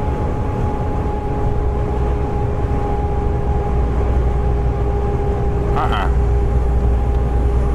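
Inside a heavy truck's cab at road speed: the engine and tyres make a steady low rumble, with a constant hum of two steady tones running through it.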